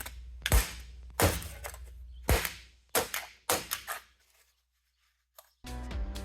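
Electric arc between a carbon electrode and aluminum can scrap in a crucible, powered by a welder power supply: a string of sharp cracks, about one every half second, over a low electrical hum. Near the end it drops to near silence for a moment, then the hum comes back.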